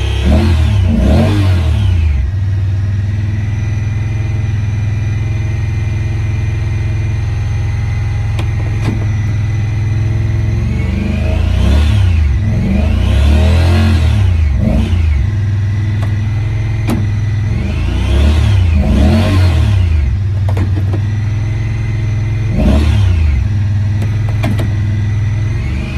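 Honda Pioneer 1000 side-by-side's parallel-twin engine running steadily, revved up and let fall back to idle several times.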